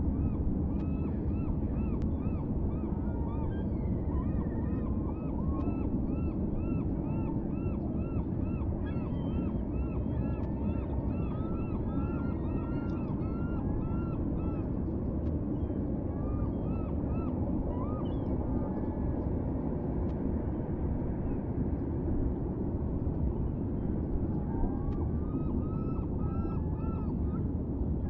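Gulls calling, repeated series of short rising-and-falling yelping notes, thinning out midway and picking up again near the end, over a steady low rumble.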